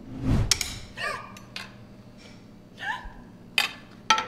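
A man gasping and making short, strained choking noises in several separate outbursts: a loud one at the start, brief rising cries about a second in and again near three seconds, and sharp bursts near the end.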